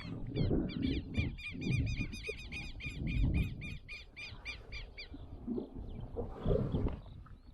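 A bird calling a fast run of repeated high, arched notes, about five a second, lasting about four seconds. Low thumps and rustling from handling run beneath it.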